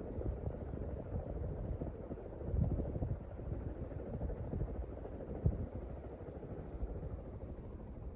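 Benton 52-inch Hugger flush mount ceiling fan running: a steady whoosh of moving air with uneven low rumbling as the draught from the blades buffets the microphone.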